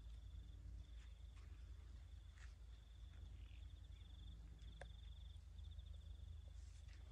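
An insect chirping faintly in short, high, rapid trills that repeat with brief gaps, over a low rumble and a few soft clicks.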